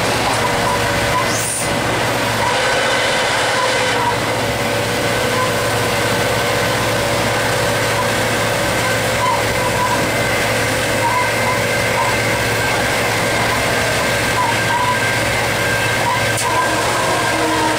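EMD GT36HCW diesel locomotive running at speed, heard from inside its cab: a steady, loud engine drone with track noise, holding an even level throughout.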